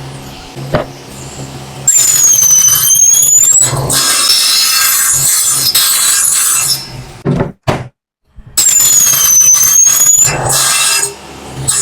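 Power saw making two cuts: each begins with a high squeal that dips and then rises in pitch, followed by loud rasping of the blade through the stock over a steady motor hum. The saw runs more quietly before the first cut, and there is a brief near-silent pause between the cuts.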